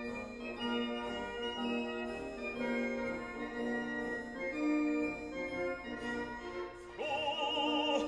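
Classical background music: slow, held organ-like keyboard notes, joined about seven seconds in by an operatic singing voice with a wide vibrato.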